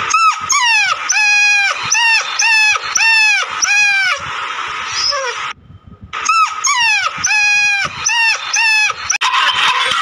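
Dog yelping: a run of short, high-pitched yelps that fall in pitch, about two a second, which stops for a couple of seconds midway and then starts again.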